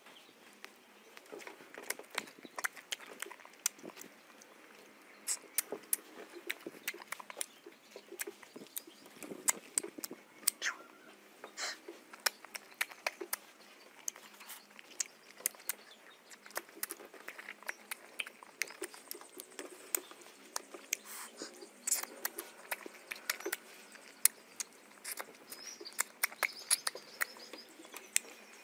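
Close-up wet mouth sounds of a person eating mango, biting and sucking the flesh off the skin: many irregular sharp lip smacks and clicks with slurping between them.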